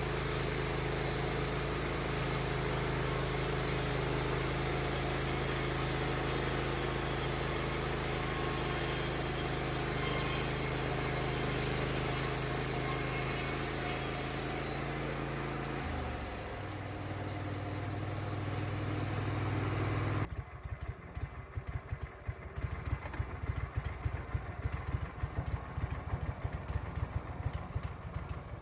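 Wood-Mizer LT15 sawmill running under steady engine power with a high hiss over it. About 16 s in the engine drops to a lower speed. A few seconds later the hiss stops suddenly and the engine settles into an uneven, pulsing idle.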